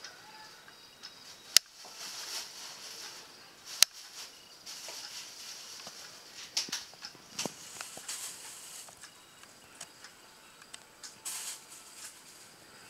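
Soft rustling and handling noises, with two sharp clicks, about a second and a half and about four seconds in.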